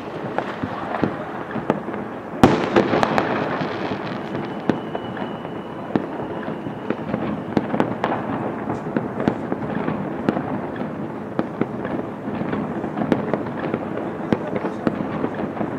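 Many New Year fireworks and firecrackers going off at once, a dense, unbroken rattle of bangs and crackles. One loud bang comes about two and a half seconds in, and a thin high whistle is heard for a second or two around five seconds in.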